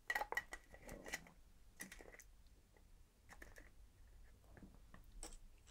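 Faint clicks and scrapes of plastic as an electric toothbrush's internal assembly is slid back into its handle casing. The clicks come in a quick cluster in the first second, then a few more scattered through the rest.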